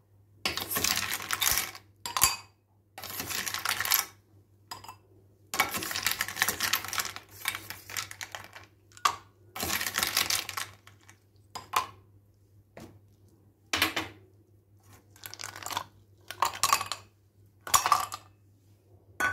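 Ice cubes tipped from a steel bowl into glass tumblers, clattering and clinking against the glass and the metal. There are several rattling stretches of about a second each in the first half, then a string of single clinks.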